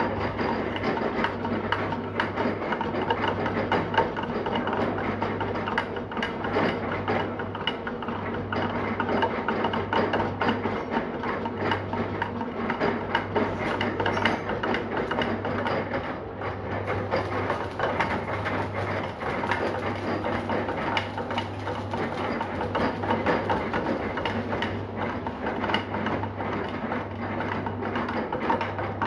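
Metal lathe running and cutting: a steady low motor hum under a dense, continuous rattle.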